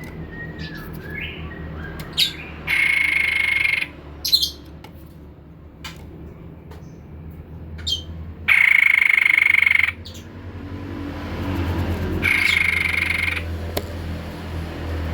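White-breasted babbler (tepus dada putih) calling: three loud, buzzy rattling phrases of a second or so each, with short high chirps between them, over a steady low hum.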